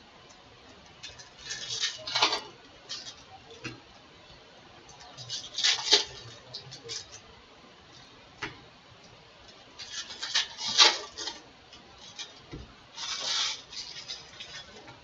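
Foil wrappers of baseball card packs crinkling and cards being handled, in four short rustling bursts with quiet handling between.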